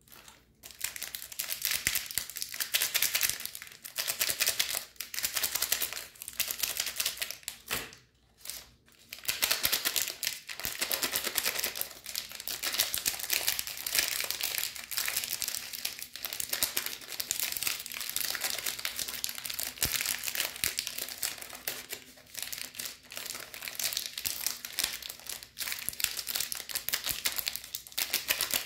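Shiny plastic and foil candy wrappers crinkling and crackling as hands handle and squeeze them, with a short break about eight seconds in.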